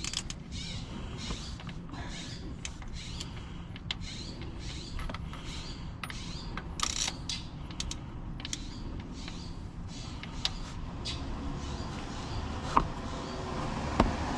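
A socket wrench on the crank pulley bolt of a 2010 Ford Escape's engine gives irregular clicks and creaks as it is strained to turn the crankshaft by hand. The crank will not spin, which the owner takes for a blown engine after it was run out of oil.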